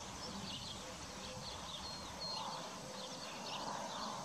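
Small birds chirping repeatedly over a steady outdoor hiss, with faint low rustling and tearing from horses cropping grass.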